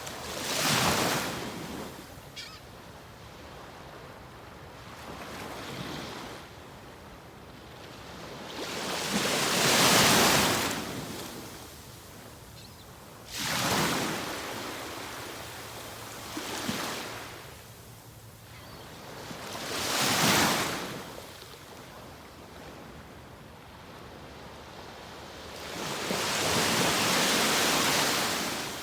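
Atlantic Ocean surf breaking on the beach: a steady wash of sea noise with about six waves surging in and falling away every few seconds.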